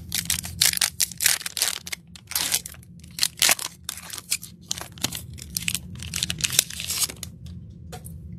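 Plastic wrapper of a trading-card pack being torn open and crinkled: a dense run of crackles and rips that thins out about seven seconds in.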